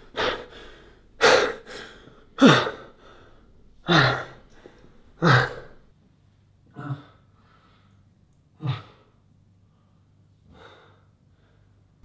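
A man's heavy, gasping breaths, one about every second and a half, some with a catch in the voice. After about six seconds they grow fainter and further apart, with one last faint breath near the end.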